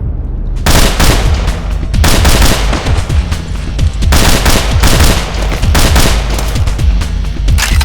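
Rapid automatic gunfire sound effects in long bursts, starting under a second in, dense and loud over a low music bed.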